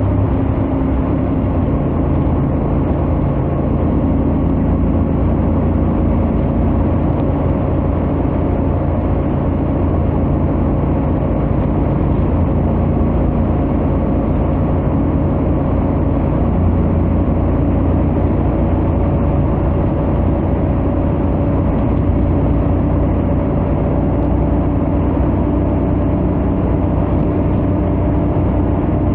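Honda X-ADV 750's parallel-twin engine and stock exhaust running steadily at highway cruising speed, its pitch creeping slowly up, over a haze of wind and road noise.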